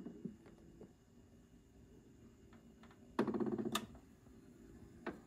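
BSR record changer's automatic trip cycle at the end of a record: a burst of rapid mechanical clattering about three seconds in as the tonearm lifts and swings back to its rest, ending in a sharp click as the changer shuts off. Faint light clicks come before it.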